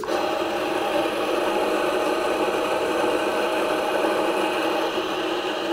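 Electric espresso grinder motor running steadily as it grinds a dose of coffee into the portafilter, starting abruptly.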